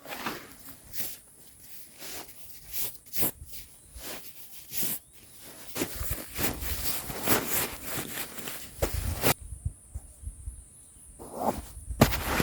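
A run of irregular short rustles and knocks, close by, like someone moving about and handling things; they thin out briefly about three-quarters through, then pick up again.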